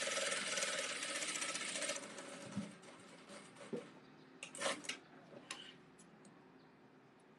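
Industrial single-needle lockstitch sewing machine running fast while stitching a hem, then stopping about two seconds in. A few sharp snips follow as the thread is cut with scissors.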